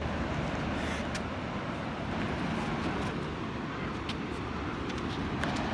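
Steady outdoor rushing noise with a few faint ticks scattered through it.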